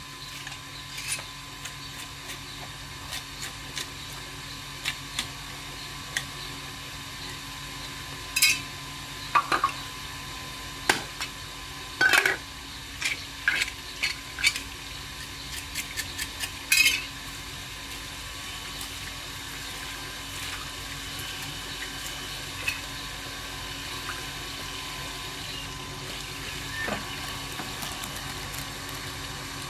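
Water running from a garden hose in a steady hiss, with scattered sharp clicks and clatters of fish pieces and tools being handled on a wet wooden cutting block, busiest in the middle and dying away in the last third.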